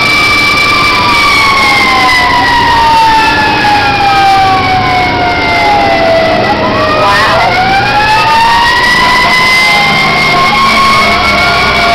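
Rescue truck's wailing siren heard from inside the cab. Its pitch falls slowly over several seconds, then climbs again about seven seconds in. The truck's engine and road noise rumble underneath.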